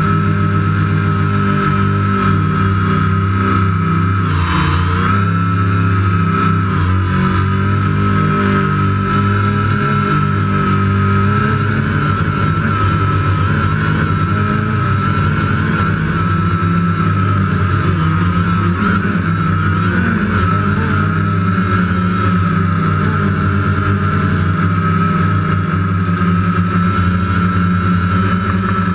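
DJI Phantom quadcopter's motors and propellers running with a steady whine, heard from the GoPro on the drone itself. About four and a half seconds in, the whine briefly dips in pitch and comes back up.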